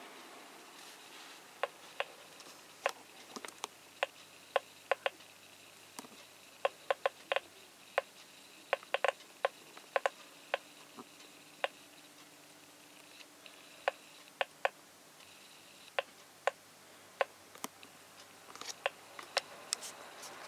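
Homemade Geiger counter with a large Geiger-Müller tube clicking at irregular, random intervals, about two clicks a second. Each click is one detected count.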